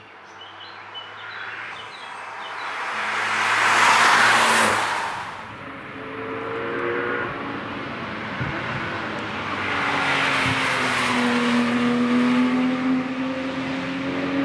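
Cars driving past at speed on a race track, one after another. The first sweeps past about four seconds in with a loud rush of tyre and wind noise; engine notes of the next cars follow, rising and falling, the loudest from about ten seconds on.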